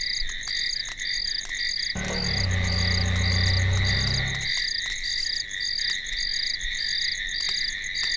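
Steady night chorus of insects and frogs: a constant high trilling, with one call pulsing about twice a second. About two seconds in, a car engine hums low and steady for two and a half seconds, then cuts off.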